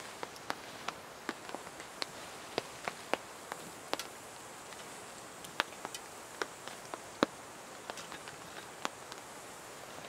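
Small wood campfire crackling: sharp, irregular pops and snaps over a steady hiss, with one louder pop a little past the middle.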